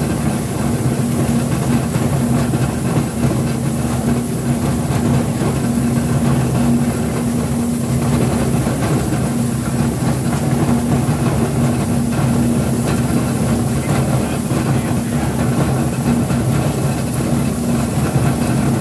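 Sweed PCR1034 scrap prechopper running steadily while chopping scrap shotgun shells: a constant low hum with a continuous dense clatter.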